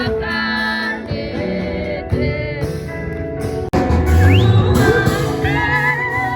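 Music with a singing voice. About four seconds in it breaks off abruptly and a louder passage with heavy bass comes in.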